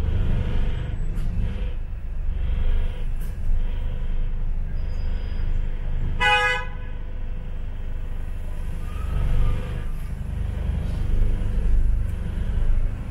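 Low, steady engine and road rumble of a London bus heard from on board, with one short vehicle horn toot about six seconds in.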